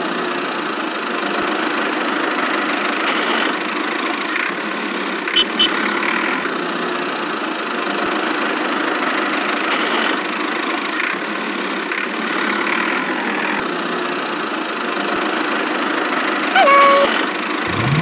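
Steady engine-like running noise as the miniature toy tractor drives along, with a few faint clicks. Near the end comes a brief burst of gliding, chirpy tones.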